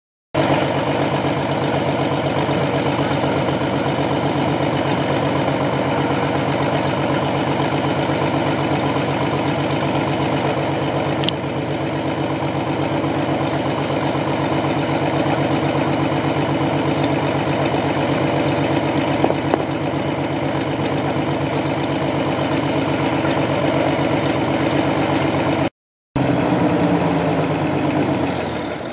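A Zivko Edge 540 race plane's uncowled Lycoming flat-six aero engine running steadily at idle, propeller turning, with a brief cut of silence near the end.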